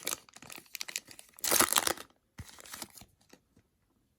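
Foil wrapper of a football trading-card pack being torn open and crinkled, in irregular rustling bursts with the loudest about one and a half seconds in, settling by about three seconds in.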